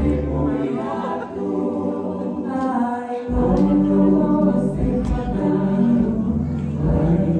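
Tongan string band singing in group harmony, with acoustic guitar accompaniment, as music for a tau'olunga dance. The low end of the accompaniment drops away for a few seconds and comes back in the middle.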